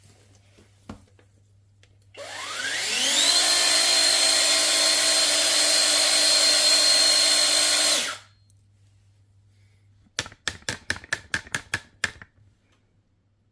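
A brushless cordless pole chainsaw's motor spins up with a rising whine and runs steadily with no load for about five seconds, then cuts off suddenly. A couple of seconds later comes a quick run of about ten clicks.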